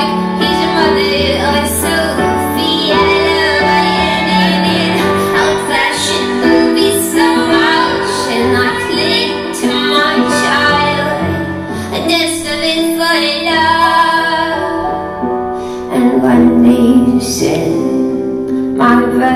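Women singing a slow song live with acoustic accompaniment, held low notes under their voices, growing louder a few seconds before the end.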